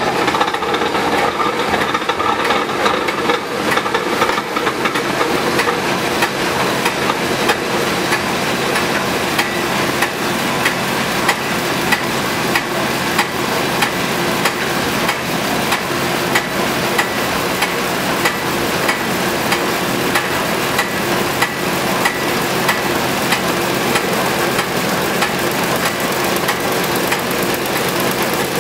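Belt-driven edge planer for barrel lids and bottoms, its large knife-carrying disc spinning up to speed in the first few seconds and then running steadily. It makes a loud mechanical noise with a regular ticking running through it.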